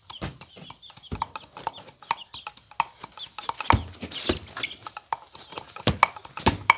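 Garlic being pounded with a wooden pestle in a wooden mortar: a fast, irregular run of dull knocks.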